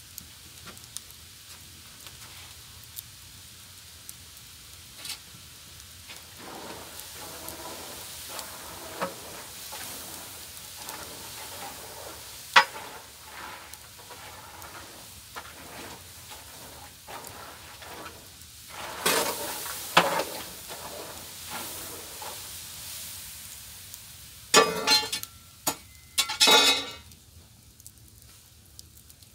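Hot water steaming and sizzling in a large cane kettle as green peanuts are stirred in with a paddle: a steady hiss with churning, sloshing noise. A few loud clatters and scrapes stand out, about two-thirds of the way through and again near the end.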